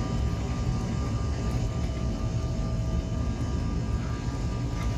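Cabin noise of a Bombardier CRJ1000 on its takeoff roll: the rear-mounted GE CF34 turbofans at takeoff power and the wheels on the runway making a steady low rumble.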